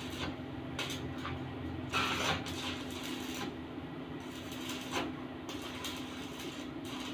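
Light metal knocks and clinks from steel pieces being handled and set in place, with a louder clatter about two seconds in and another about five seconds in, over a steady low hum.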